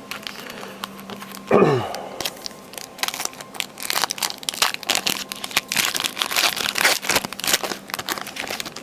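A trading-card pack wrapper crinkling and being torn open, with dense, irregular crackling from about three seconds in. About a second and a half in there is a short sound that falls in pitch, the loudest moment.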